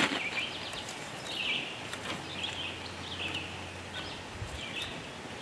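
Birds chirping in short, repeated calls in the background, with a few faint scattered clicks.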